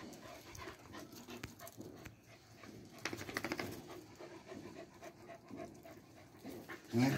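Small dogs panting quickly and faintly while playing, with a few light clicks. A short, louder pitched sound comes just before the end.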